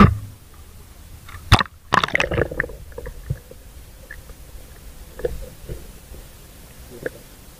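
A waterproof camera dunked into the sea: a sharp knock and a short burst of splashing about two seconds in, then muffled underwater sound with scattered faint clicks.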